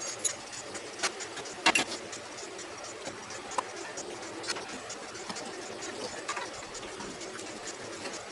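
Scattered metal clicks and knocks of hand tools and engine parts being fitted, irregular and unevenly spaced, over a steady background hum.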